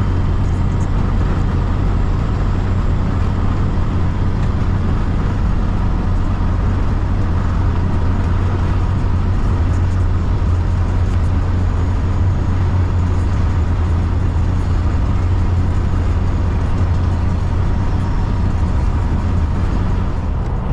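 Steady diesel engine drone and road noise inside a semi truck's cab while driving on the highway.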